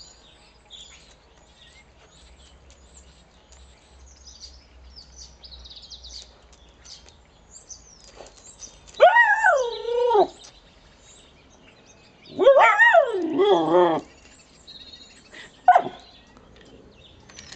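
Alaskan Malamute puppy vocalizing: a wavering call that falls in pitch about nine seconds in, a longer up-and-down call a few seconds later, and a short one near the end. Faint bird chirps sound in the quiet stretch before them.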